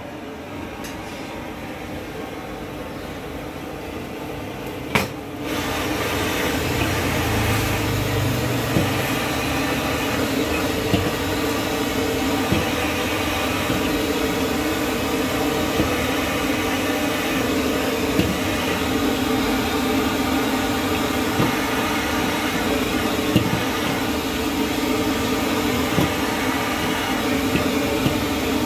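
Rice vermicelli stir-frying in a steel wok over a gas burner: a steady hiss that gets suddenly louder about five seconds in. The spatula knocks against the wok every few seconds.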